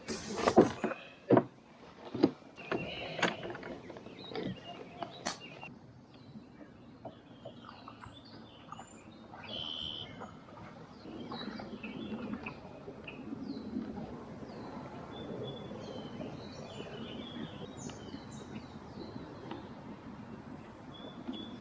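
Birds chirping and calling over a steady outdoor background. Several sharp knocks and clatters come in the first few seconds.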